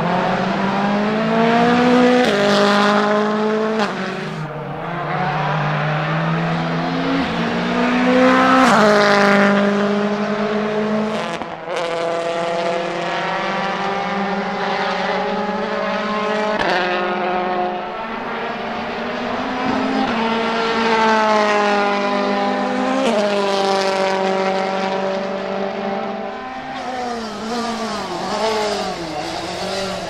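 Rally car engines at full throttle, several cars in turn, each revving up through the gears with quick shifts and lifting off. Near the end, a car's engine note swoops down and up as it passes.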